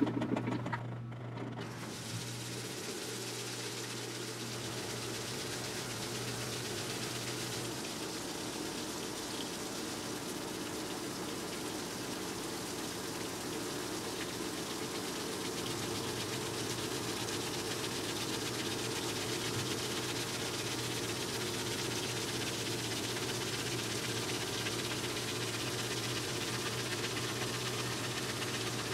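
LG mega-capacity top-load washing machine filling, played sped up: a steady rush of water spraying into the turning drum, over a low hum that drops out for a while in the middle. A brief clatter comes at the very start.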